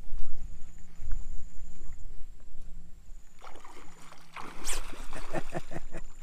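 Wind rumbling on the microphone, then water sloshing and a quick run of knocks against the kayak from about three and a half seconds in, as a fish is handled at the hull.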